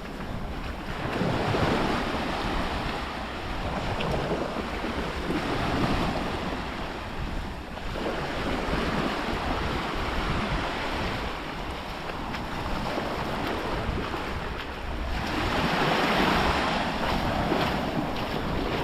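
Small waves breaking and washing up the beach, swelling and ebbing every few seconds, with wind buffeting the microphone.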